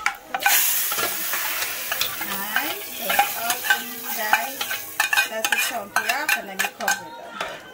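Hot oil with fried garlic and whole cumin seeds poured into a pot of mulligatawny soup, the tempering (chunkay) step: a loud sizzle bursts out about half a second in and keeps hissing. A spoon clinks and scrapes as it empties the small frying pan.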